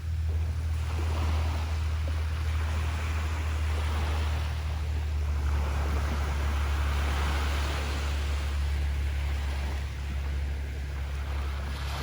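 Ocean surf washing onto a beach, a steady rush of water that swells and eases a few times, over a constant low rumble.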